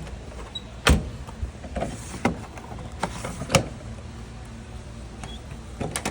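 Sharp clunks and knocks from a display washing machine being handled, the loudest about a second in, then two more and a quick pair near the end, over a steady low hum.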